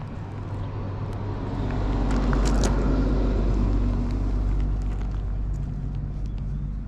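A motor vehicle passing by: a low rumble that swells for a couple of seconds and then fades away, with a few sharp clicks near the middle.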